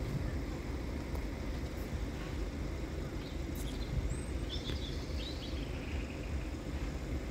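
Steady low outdoor rumble of background noise, with a few short high bird chirps about halfway through.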